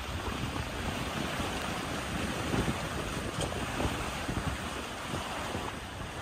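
Wind buffeting the microphone over the wash of waves against a sailboat's hull while it sails through choppy sea: a steady rushing noise with an uneven low rumble.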